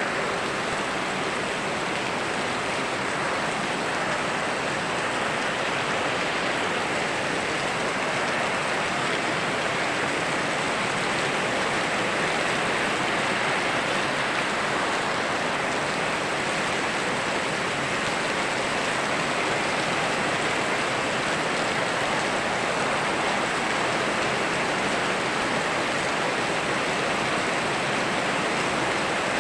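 Steady rushing water of a flowing river mixed with rainfall, an even, unbroken wash of sound with no distinct drops or breaks.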